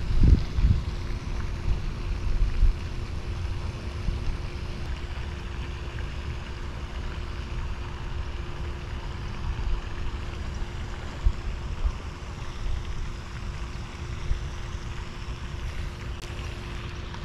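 Wind buffeting the microphone as a low rumble, gustier and louder in the first few seconds, over a faint steady hum.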